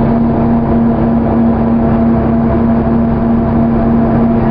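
Cabin of a 2001 New Flyer D35LF bus cruising, its Cummins ISC inline-six diesel engine droning at a steady pitch over a low road rumble.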